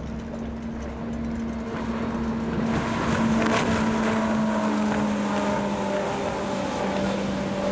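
Mercury Verado 250 Pro outboard, a supercharged inline-six, running at high speed on a planing race boat. It is a steady droning engine note over the rush of spray, growing louder about three seconds in as the boat comes closer.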